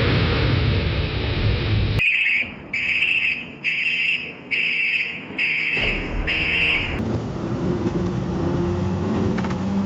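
Car-accident sound effects: a loud rumbling noise that cuts off abruptly, then six evenly spaced high-pitched electronic beeps, like a car alarm, followed by a low steady hum.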